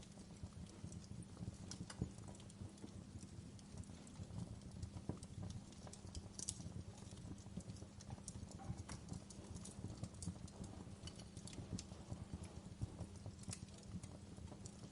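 Fire crackling: irregular sharp pops and snaps scattered over a low, steady rumble of burning.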